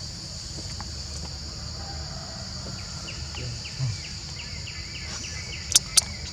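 Steady high insect drone outdoors, with a run of short, faint chirps in the middle and two sharp clicks close together near the end.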